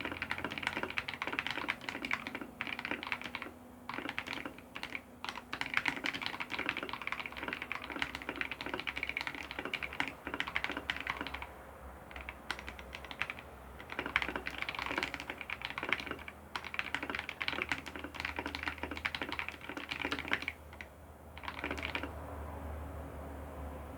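Fast touch-typing on a Keypole K84 mechanical keyboard: a rapid, dense stream of key clicks at about 109 words per minute, broken by a few brief pauses. The typing stops near the end, leaving a low steady hum.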